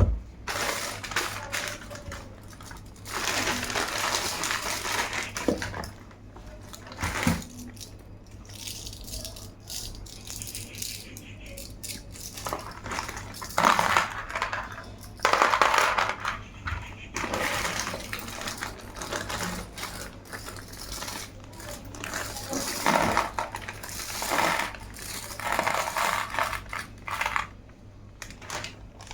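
Packaging being opened and handled in irregular bursts of rustling and handling noise, with a few light clicks and clinks.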